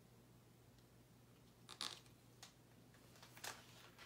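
Near silence with a few faint paper rustles from a hardcover picture book being handled, its page being turned near the end.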